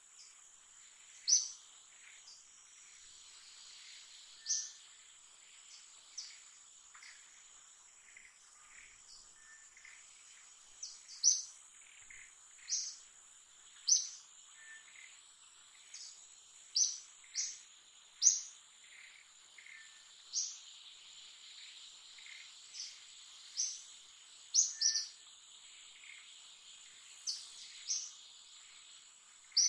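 Wild birds giving short, sharp, high chirps at irregular intervals of one to three seconds, over a steady high-pitched insect drone.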